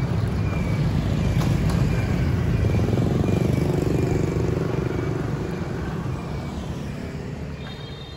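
Low rumble of street traffic, motorbikes and a car moving off across the tracks of a level crossing, fading away toward the end. Above it a short high warning tone repeats at a steady beat, about two a second, typical of a level-crossing alarm still sounding after the train.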